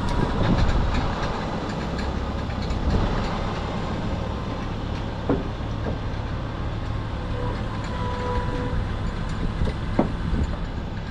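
Tractor engine running steadily as the tractor is driven off a trailer, with a couple of sharp metal clanks, about halfway through and near the end.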